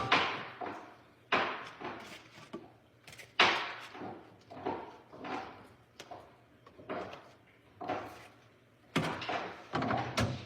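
Kitchen clatter: a dozen or so sharp knocks and bangs at irregular intervals, each dying away quickly, growing busier near the end.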